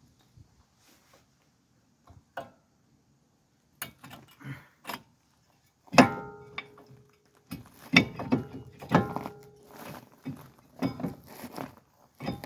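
Metal brake parts being handled: a run of clinks and clanks, several with a short metallic ring. The loudest strike comes about six seconds in, and a busy cluster of clinks follows near the end. The parts are the brake pads and their steel shims as they are set in place.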